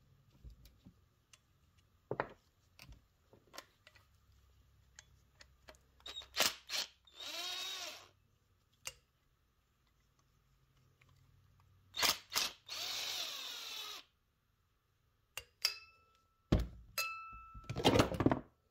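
A cordless power driver runs in two short bursts of about a second and a half each, backing out the bolts that hold a small-engine carburetor to its intake pipe. Sharp clicks come before each run, and several loud metal knocks and rattles come near the end.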